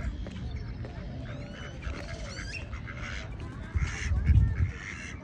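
Ducks and other birds calling at a pond, many short calls and chirps overlapping. A low rumble hits the microphone about four seconds in.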